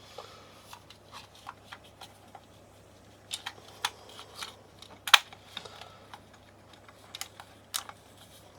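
Plastic casing parts of an LED camping light being handled and fitted back together: scattered light clicks and taps, with one sharper click about five seconds in.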